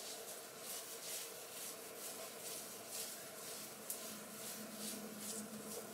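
Faint, irregular soft rustling, two or three strokes a second, as fingers scrunch curl maker through short, coily hair.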